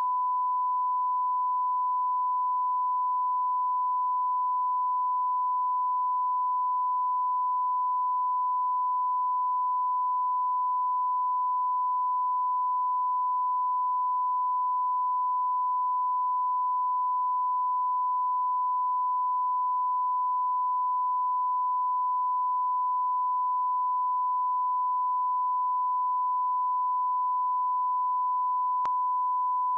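Broadcast line-up reference tone: a continuous, steady 1 kHz sine-wave beep at one pitch, the test tone that runs with colour bars for setting audio levels.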